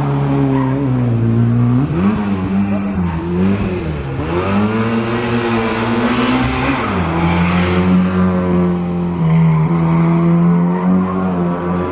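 Peugeot 205 rally car's four-cylinder petrol engine running hard, its pitch falling and climbing with gear changes and throttle: a dip about two seconds in, a climb over the next few seconds, then a drop near the middle and a steady, held note.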